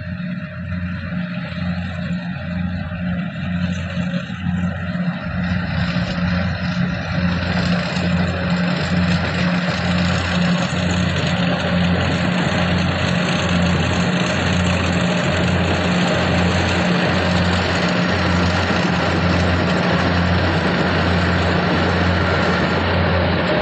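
Kubota DC104 combine harvester running, a steady low diesel hum under the rush of its threshing machinery. The sound grows louder over the first several seconds, then holds steady.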